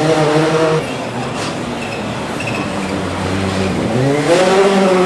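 Rally car engine revving hard, then lifting off just under a second in and running quieter, before another rising pull at full throttle from about four seconds in.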